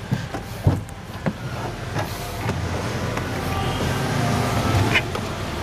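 A car's rear door being opened from inside: the handle and latch clicking, the door knocking as it swings, then a person shifting and climbing out of the seat. A steady low rumble grows from about two seconds in, with another knock near the end.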